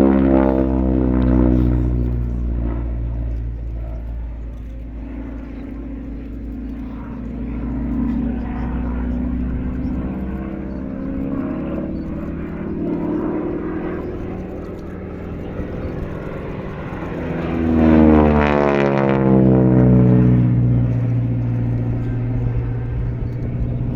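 North American Harvard's Pratt & Whitney R-1340 Wasp radial engine and propeller in a display flypast: the pitch falls as the plane passes at the start, the sound dips and swells as it manoeuvres, then grows loud again about three-quarters of the way through with the pitch dropping sharply as it flies past.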